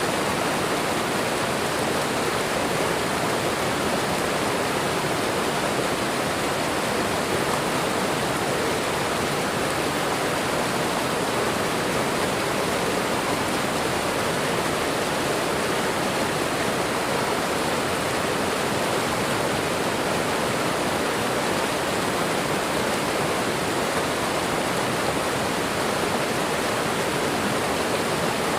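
A waterfall: water falling and running in a steady, unbroken rush.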